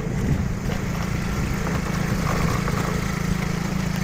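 Vehicle engine running steadily with a low rumble.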